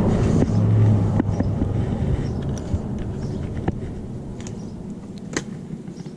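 Tohatsu 6 hp four-stroke outboard engine running, its rumble growing steadily quieter and largely gone near the end. A few sharp clicks from the fuel line connector sound over it.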